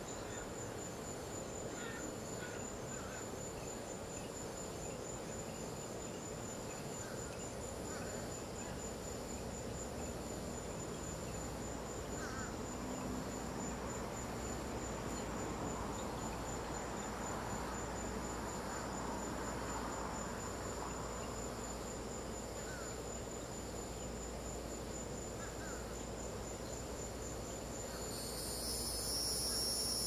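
Crickets chirping in a steady, finely pulsed high trill, with a few faint short chirps underneath. A second, louder insect trill starts near the end.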